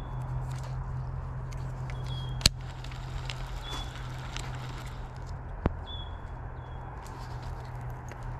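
Baitcasting reel being handled while its drag is set: faint ticks and two sharp clicks, about two and a half and five and a half seconds in, over a steady low hum. Short high chirps come now and then.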